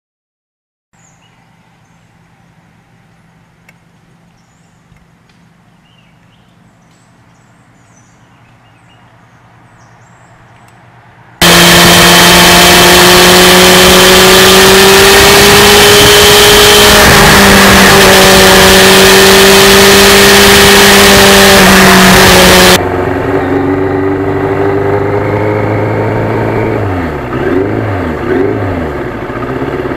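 Yamaha FZR1000 inline-four motorcycle engine. After a stretch of faint low hum with a few bird chirps, the engine and wind rush jump in very loud at steady cruising speed, heard from close beside the rear wheel; this cuts off after about eleven seconds to a quieter engine whose revs rise and fall several times as the bike rides slowly.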